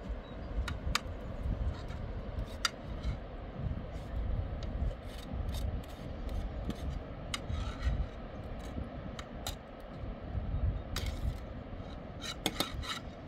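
A spoon scraping and clicking against a cooking pot and a plastic bowl as food is stirred and scooped, in irregular short strokes over a low, uneven rumble.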